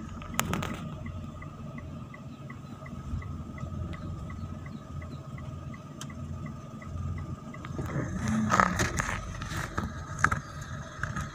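Inside a slowly moving car: a low engine and tyre rumble, with a faint, evenly spaced ticking through most of it and a few knocks and rattles near the end.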